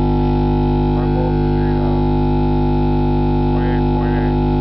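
A 50 Hz sine-wave test tone played loudly through a car amplifier and subwoofer, heard as a steady, unbroken hum with many overtones. The amplifier is putting out about 28.5 volts AC.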